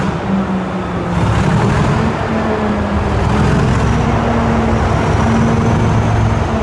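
Loud vehicle engine running steadily, a low drone under a hiss.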